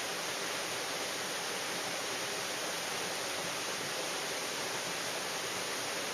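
Mountain stream rushing, a steady, even noise of flowing water.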